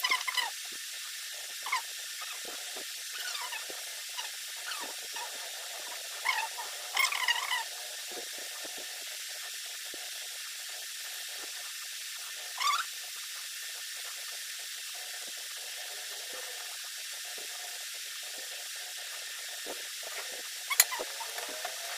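Short, high, squeaky cries from an animal in small clusters: around the start, about seven seconds in, near thirteen seconds and near the end, over a steady hiss.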